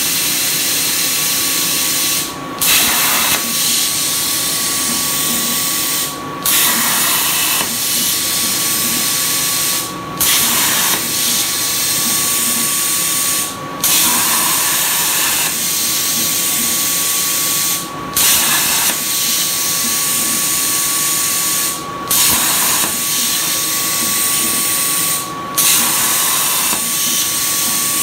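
CNC plasma cutter torch cutting sheet steel: a loud, steady hiss of the arc and its air. About every four seconds the hiss drops out briefly and comes back with a short burst as one small cut ends and the torch starts the next.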